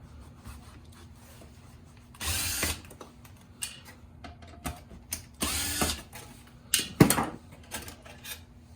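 Small screws being run out with a power screwdriver in two short bursts, with sharp clicks of small parts being handled near the end.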